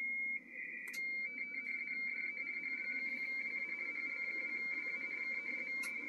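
RTTY radioteletype data signal from a Yaesu transceiver's speaker: a high-pitched, rapidly keyed two-tone warble. It breaks off briefly with a sharp click about a second in, and another click comes near the end.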